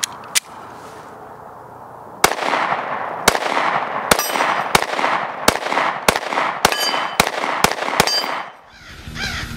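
Glock 26 Gen5 9mm pistol firing about ten shots at a steady pace, roughly one every half to one second, beginning about two seconds in. A brief ringing follows several of the shots. Music starts near the end.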